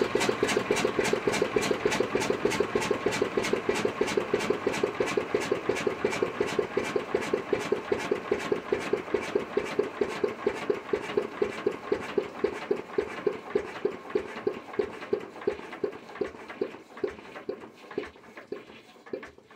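Old Witte diesel generator engine winding down to a stop after being shut off: its even beats slow steadily and fade, dying out near the end.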